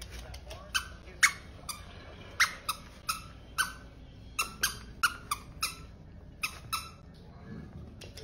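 A dachshund puppy's plush squeaky toy giving short, sharp squeaks about twice a second, irregularly, as the puppy bites and carries it. The squeaks pause about a second and a half before the end.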